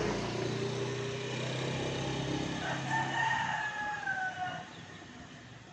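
A rooster crowing once: a single held call of about two seconds that drops in pitch at its end. Under the first half there is a steady low hum that fades out around the time the crow begins.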